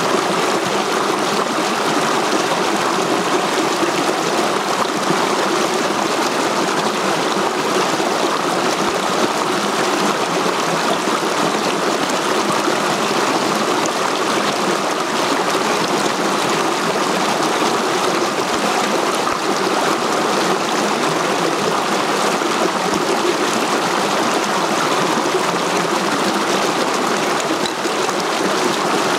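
Shallow mountain stream rushing over boulders in small cascades: a steady, even rush and splash of water.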